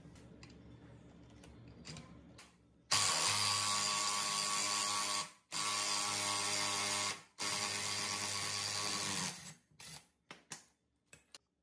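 Faint handling clicks, then an electric power tool runs loud and steady in three bursts of about two seconds each, with brief stops between, followed by a few scattered knocks.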